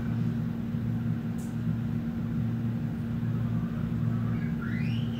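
A steady low hum, with a short rising chirp near the end.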